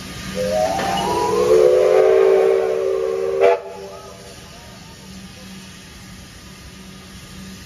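Victorian Railways A2-class steam locomotive's whistle blown once in a long blast of about three seconds, swelling and then cut off sharply.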